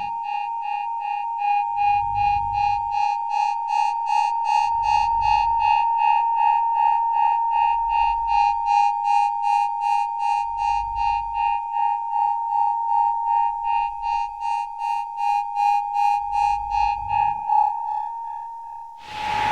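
Electronic synthesizer sound effect: a steady, pulsing high tone with a low bass hit about every three seconds. Near the end the tone shifts and a loud whooshing sweep swells up.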